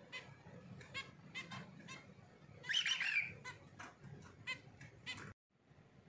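Zebra finches giving short, repeated beeping calls, with one louder, longer chattering call about three seconds in. The sound drops out for a moment just after five seconds.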